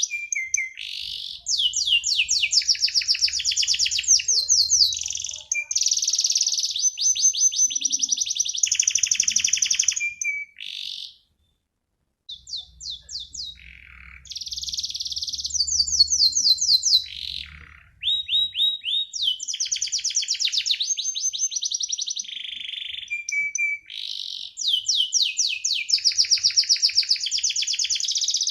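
Domestic canary singing a long rolling song: fast trills of rapidly repeated high notes, switching from one trill to the next, with a silent break of about a second near the middle.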